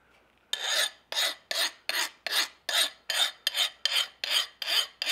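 Steel file rubbed back and forth across the edge of a freshly quenched san mai knife blade, about a dozen quick rasping strokes at two or three a second. It is a file test to check that the blade has hardened.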